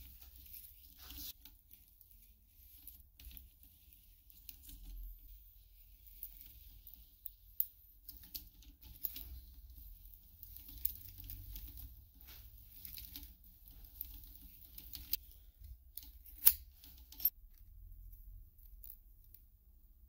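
Thin metal sheet scraping and rustling against the rollers of a small bench sheet-metal roller as it is rolled into a cylinder, in uneven spells, with a few sharp clicks.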